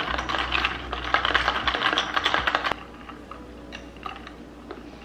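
Ice cubes and a straw clattering inside a plastic tumbler of iced coffee as it is stirred: a quick run of clicks and rattles that stops abruptly about two and a half seconds in.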